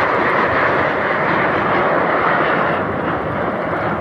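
Loud, steady drone of an airplane's engines flying over, easing slightly near the end.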